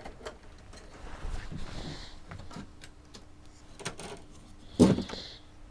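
The metal back panel of a bench test instrument being handled and shifted on its backplane connectors: scattered light clicks and scrapes, then one loud knock about five seconds in.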